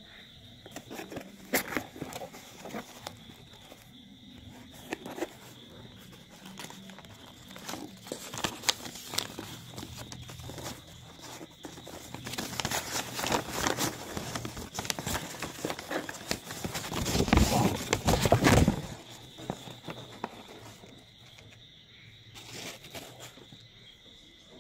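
Hands opening a taped cardboard parcel: cardboard flaps and packing tape being handled and pulled, with plastic wrapping and paper crinkling and scattered knocks. A longer, louder stretch of rustling and tearing comes about three quarters of the way through.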